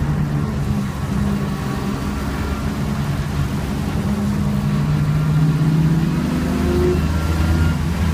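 BMW E36 328i's straight-six engine heard from inside the cabin, running through a slow corner with the revs building again in the second half as the car speeds up.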